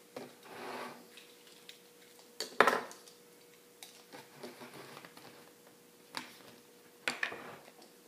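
Plastic measuring spoons and a plastic gallon ammonia jug being handled: a series of separate clinks and knocks as the spoons are picked up and the jug's cap is opened, the loudest knock about two and a half seconds in.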